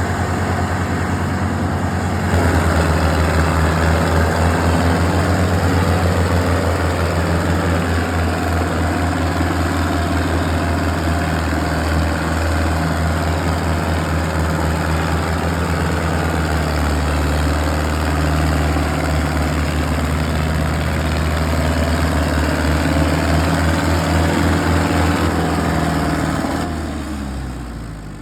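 A large vehicle engine idling steadily with an even throb, fading away near the end.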